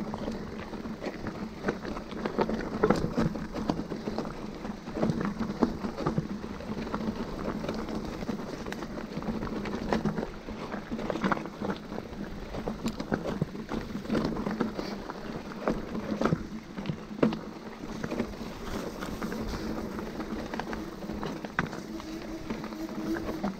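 Mountain bike riding over a rough trail: steady tyre and riding noise with frequent knocks and clatter from the bike over bumps.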